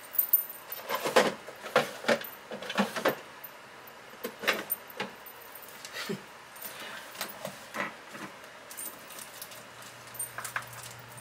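Paper scraps and small craft pieces being shuffled and handled: a scatter of short crisp rustles and clicks, busier in the first three seconds and sparser after.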